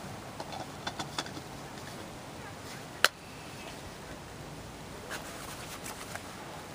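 Steady faint outdoor background noise with scattered soft ticks and one sharp click about three seconds in.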